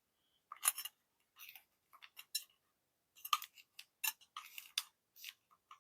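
Faint, irregular small clicks and light clinks of lead airgun pellets being handled and picked through in their tin.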